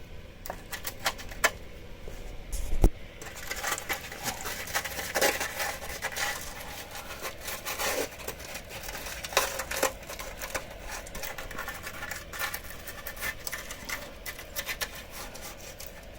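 A hand tool scraping and clicking against corroded metal under a van's wheel arch, in irregular strokes, with a sharp knock about three seconds in.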